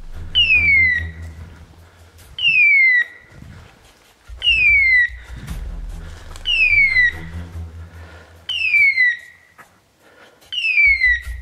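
Dog beeper collar sounding its point-mode signal: a falling, whistle-like screech about half a second long, repeated every two seconds or so, which marks a pointer standing on point. A low rumble and a few light clicks sound between the screeches.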